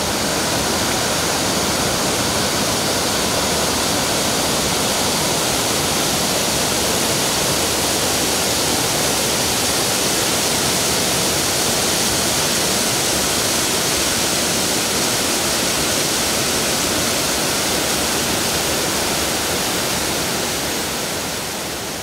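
Waterfall water rushing and splashing over rocks in a steady, even rush, fading out near the end.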